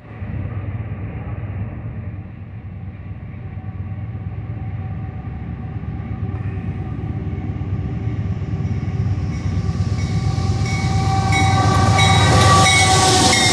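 Diesel locomotives hauling a loaded coal train approaching: a steady low engine rumble that grows louder. Over the last few seconds, as the lead unit draws close, a rising hiss and steady ringing tones of wheels on rail join in.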